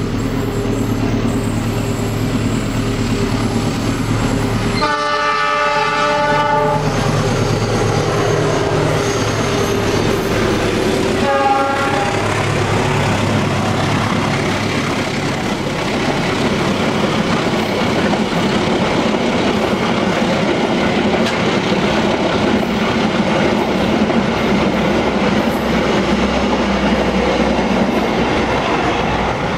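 CC206 diesel-electric locomotive accelerating past with its engine running steadily. It sounds a long blast on its air horn about five seconds in and a short one about twelve seconds in. Then comes the loud, steady rumble and clickety-clack of the passenger coaches rolling by.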